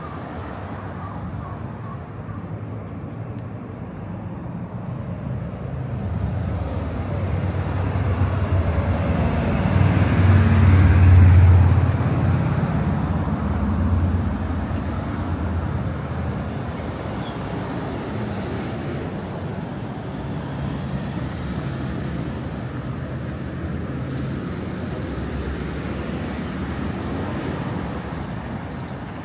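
Road traffic: a motor vehicle passes close by, loudest about eleven seconds in, over steady traffic noise.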